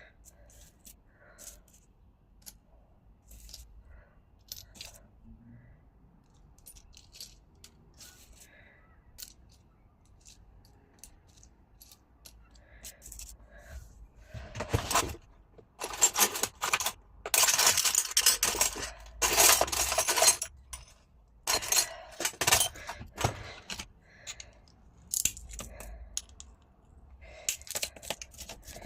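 Pieces of scrap glass clinking and scraping against one another as they are handled, with a few scattered light clinks at first and a much louder stretch of jangling and clattering about halfway through that runs for several seconds.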